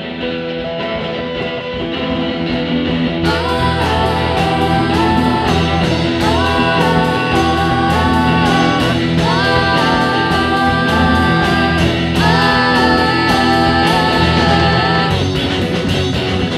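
Neo-psychedelic rock recording by an all-girl band: an electric guitar opening, with the full band and drums coming in about three seconds in and a melodic line of held, stepping notes over it.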